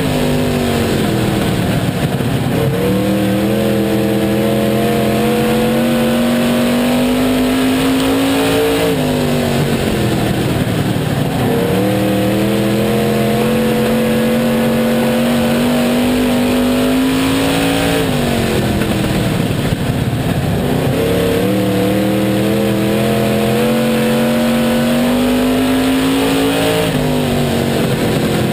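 Oval-track stock car engine heard from inside the cockpit under race load, its pitch climbing steadily along each straight and dropping off as the driver lifts for the turns. This happens three times, roughly every nine seconds, with another lift beginning near the end.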